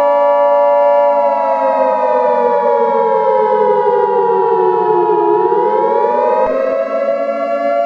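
Civil defense siren sounding a chord that slides slowly down in pitch for a few seconds, then climbs back up. Beneath it runs the steady two-tone EAS attention signal, which cuts off about six and a half seconds in.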